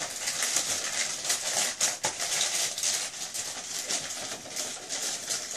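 A gift bag and tissue paper rustling and crinkling continuously as hands rummage through them.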